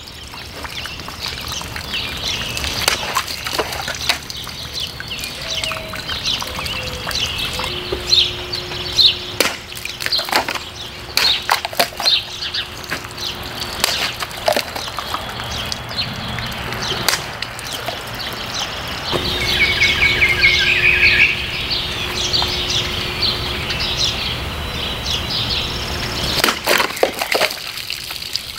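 Cold Steel Voyager XL Drop Point folding knife slashing and chopping through bottles in a run of sharp cutting strikes, some in quick bursts. Birds chirp in the background.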